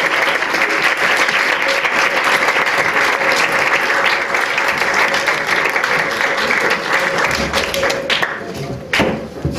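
Audience applauding, dense clapping that dies away about eight seconds in, followed by a single sharp knock near the end.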